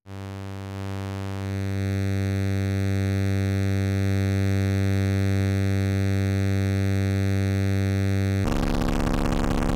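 Noise Engineering Virt Iter Legio digital oscillator in its SawX mode, playing a steady, buzzy sustained tone that brightens over the first couple of seconds. About eight and a half seconds in, a Plaits-style oscillator starts phase-modulating it, and the tone turns into a harsh, gritty, super gnarly noise.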